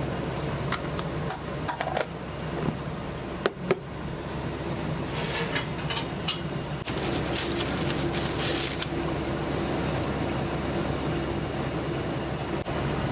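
Restaurant kitchen at work: a steady mechanical hum, with scattered clinks and knocks of utensils and cookware, and a short stretch of hissing about seven seconds in.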